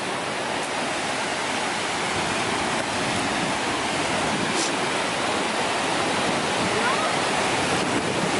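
Cauldron Snout, the River Tees cascading down a rocky channel, rushing steadily over boulders.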